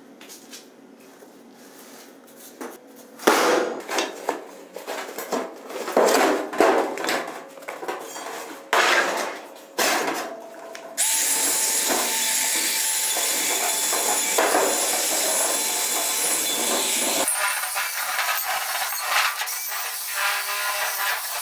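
A series of sharp metal knocks and clanks from the rusty steel wheel rim being handled on a metal bench, then, from about halfway through, a cordless drill running steadily as it bores into the steel rim; the drilling sound turns thinner, losing its low end, a few seconds before the end.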